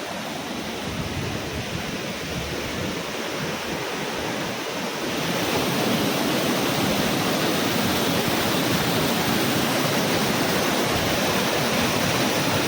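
Waterfall: a steady rush of falling water, growing somewhat louder about five seconds in.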